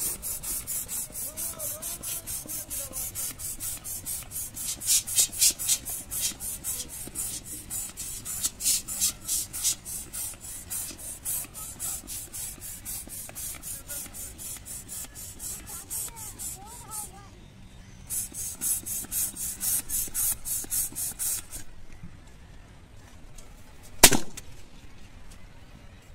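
Handheld plastic air pump inflating a rubber balloon: a long run of hissing pump strokes, about three a second, with a brief pause partway through. About 24 seconds in, the balloon bursts with a single loud pop.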